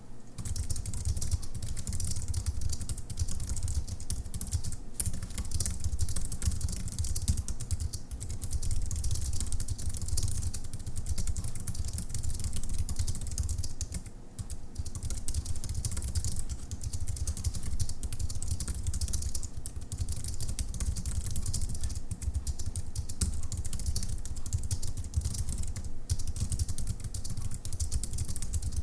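Typing on an Apple Wired Keyboard: a steady, rapid patter of key clicks from its low-profile scissor-switch keys, with a brief pause about halfway.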